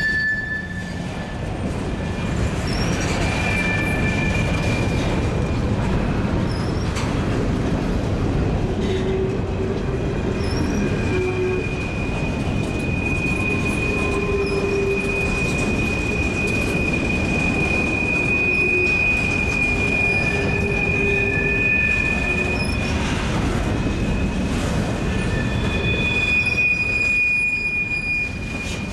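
Long freight train of mixed cars rolling around a curve, its steel wheels squealing against the rail in long, high-pitched tones that come and go over the steady rumble of the cars.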